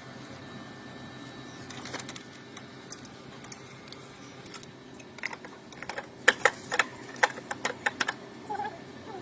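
Irregular sharp clicks and taps of parts being handled during refitting of an air conditioner unit, sparse at first and coming thick and loud in the second half, over a steady low hum.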